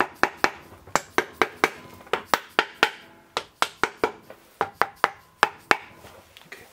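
Soft-faced mallet tapping the aluminium crankcase of a Yamaha XT600 single-cylinder engine: about twenty sharp knocks in quick groups of two to four, which stop shortly before the end. The tapping loosens the crankcase halves so they can be split.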